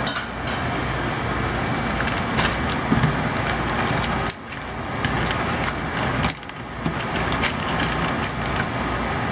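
Crab claws in sauce sizzling in a hot stainless-steel pan while a spatula stirs them: a steady sizzle with a few knocks and scrapes of shell against spatula and pan. The sizzle drops away briefly twice near the middle.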